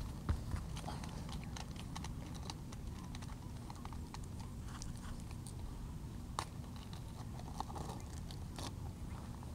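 Scattered small clicks and taps from hands handling plastic fishing tackle (beads, float, tackle box) while rigging a line, irregular, with one sharper click about six seconds in, over a low steady rumble.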